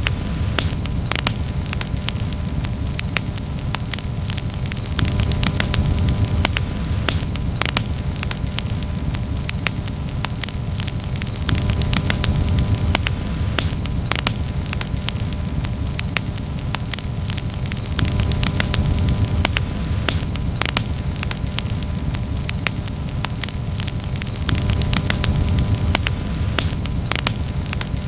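Campfire burning with frequent sharp crackles and pops over a steady low rumble of flames.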